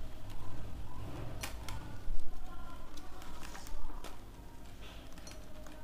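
Flat plastic basket-weaving wire being handled and pulled tight into a knot: rubbing and a few sharp clicks as the stiff strips snap against each other, the loudest about two seconds in.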